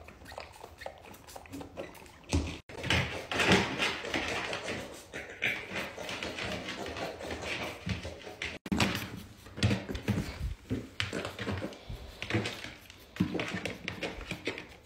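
A piglet's hooves tapping and scuffling on a tile floor, in irregular clicks and knocks.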